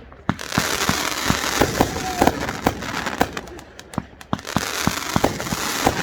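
Fireworks going off: an irregular rapid string of bangs and pops over a dense crackle, which starts about a third of a second in.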